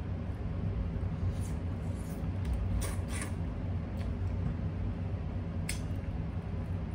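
Crab leg shells being broken apart by hand: a few short, sharp snaps and cracks, spread out over several seconds, over a steady low hum.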